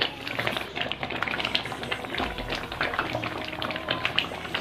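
Thick mixed-fruit jam boiling in a karahi, bubbles popping in quick, irregular clicks. It is thickening as it cooks down toward set.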